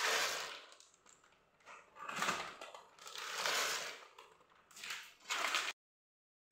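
Onions sizzling in hot oil in a stainless steel pot, the frying noise swelling and fading in waves and cutting off suddenly near the end.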